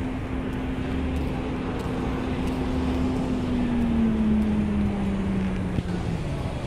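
Street traffic: a motor vehicle's engine running close by, its steady hum sliding lower in pitch over the second half. A single sharp click near the end.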